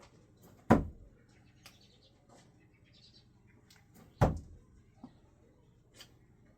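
Two sharp, loud knocks about three and a half seconds apart, with faint bird chirps between them.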